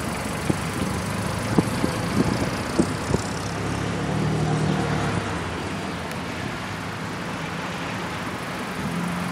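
Steady low vehicle engine hum, fading a little in the second half, with several light, sharp taps in the first three seconds.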